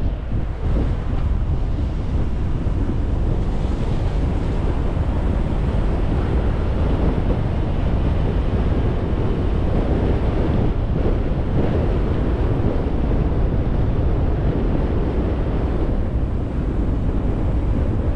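Wind blowing against the microphone: a steady, loud rush with a deep rumble.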